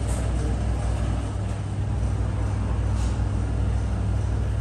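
Steady low machine rumble, like a diesel engine or shop motor running, with a faint click or two.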